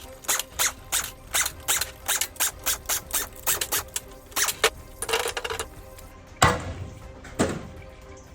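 Hand tools working on an automatic transmission being torn down: a quick run of sharp metal clicks, like a ratchet, then a short scrape and two loud metal clanks with a ringing tail near the end.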